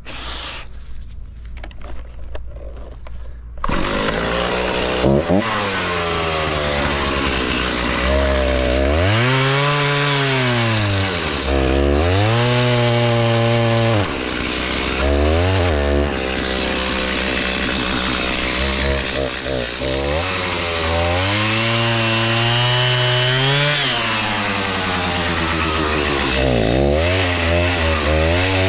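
Gas chainsaw comes in loud about four seconds in, then revs up and down again and again as it cuts into white oak wood.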